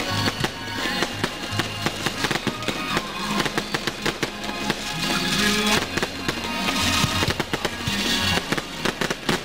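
Fireworks going off, many sharp bangs and crackles in quick succession, with music playing along with them.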